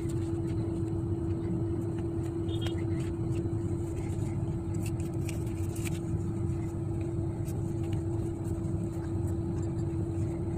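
A steady machine hum with one constant mid-low tone over a low rumble, holding the same level throughout, with a few faint clicks on top.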